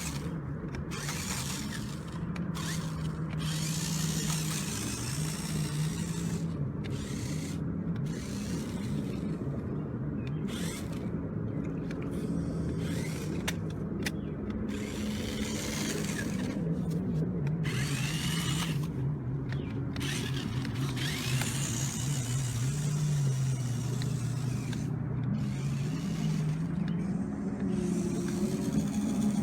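Small electric drive motor and gearbox of a 1:18-scale RC rock crawler whining as it drives, its pitch shifting up and down, with bursts of higher hiss coming and going.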